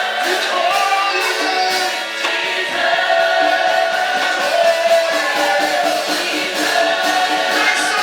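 Gospel choir singing with musical accompaniment.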